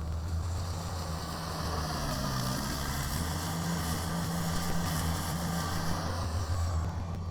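Kubota BX compact tractor's diesel engine running steadily, with a broad rushing hiss that swells in the middle and eases near the end.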